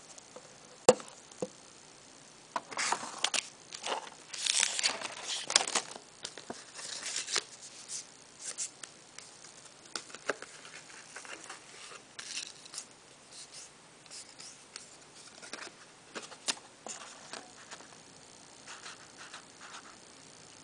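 Paper scratch-off lottery tickets being handled: irregular rustles and scrapes of card stock, with a sharp click about a second in.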